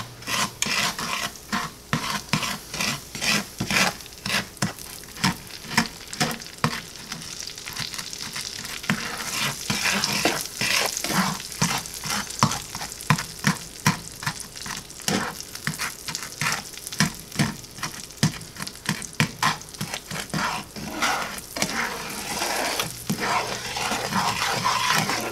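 Butter, brown sugar and spices sizzling as they melt in a skillet, stirred with a slotted spatula that scrapes and taps the pan bottom over and over. The sizzle grows louder from about nine seconds in as the pan heats.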